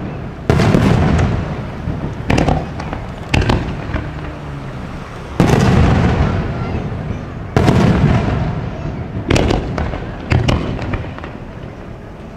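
Aerial fireworks shells bursting: about seven sharp bangs one to two seconds apart. Each bang is followed by a low rumbling tail that fades away.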